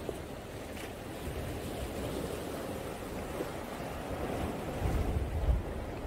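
Sea waves washing against dark volcanic shore rocks, a steady surf wash, with wind buffeting the microphone in a louder low rumble about five seconds in.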